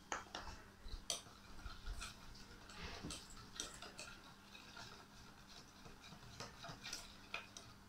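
A spoon tapping and scraping against a bowl while stirring a flour-and-water mixture, in quiet, irregular clicks and short scrapes.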